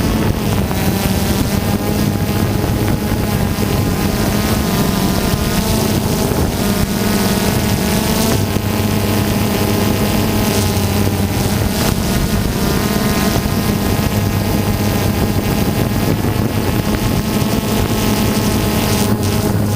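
Camera drone's propellers and motors humming steadily, with the pitch shifting slightly a few times, over a noisy wash of air.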